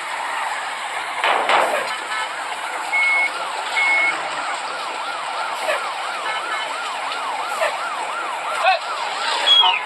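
Electronic siren warbling up and down about three times a second, starting about two seconds in, with two short high beeps just after it starts; a brief burst of noise comes just before the siren.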